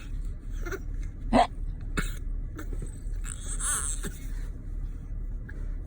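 A baby hiccuping: one sharp hiccup about a second and a half in, with a fainter click shortly after.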